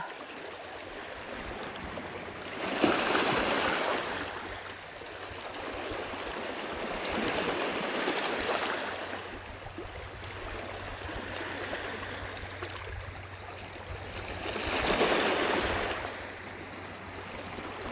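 Small sea waves washing up and draining back over a pebble beach, swelling and fading about three times.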